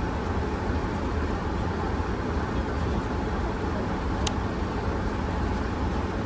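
Steady drone of an airliner cabin in flight: engine and airflow noise, even and unbroken, heaviest in the low end. A single light click about four seconds in.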